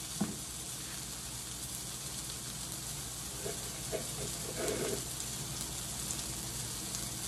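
Sausage patties sizzling steadily in an oiled frying pan.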